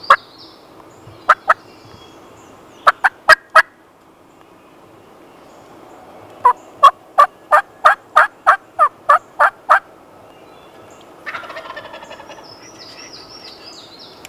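Wild turkey yelps, loud and close: a few single and clustered yelps, then a run of about eleven at roughly three a second. A brief rattling call follows about eleven seconds in.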